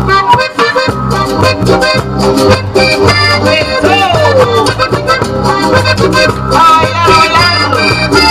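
Cumbia band playing live, an instrumental passage with a steady percussion beat, bass and a melodic lead line that glides down in pitch about four seconds in.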